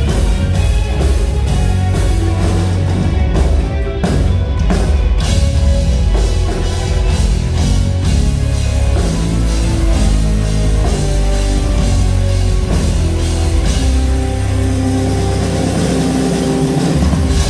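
Live rock band playing an instrumental passage: electric guitars and bass over a drum kit, loud and steady.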